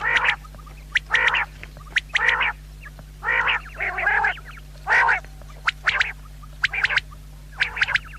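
Quail calling repeatedly: short, harsh, nasal calls about once a second, with sharp clicks between them. A steady low hum runs underneath.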